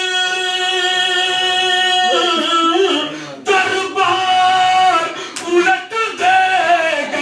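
A man singing a line of Urdu poetry in a drawn-out, melodic recitation style: one long held note for about two seconds, then ornamented, wavering phrases with a short break about three seconds in.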